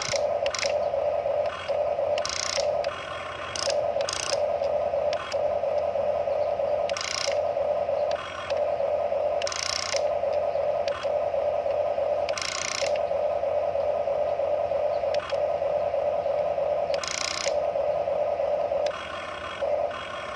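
Electric motors and gearboxes of a Huina remote-control toy excavator whirring as it swings and works its boom and bucket. The whine stops and restarts many times, with brief gritty bursts now and then.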